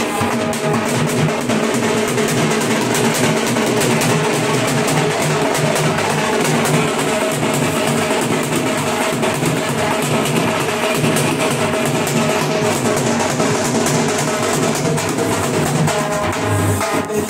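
Dhol drums beaten with sticks in a continuous fast rhythm, the strokes packed closely and steady in level.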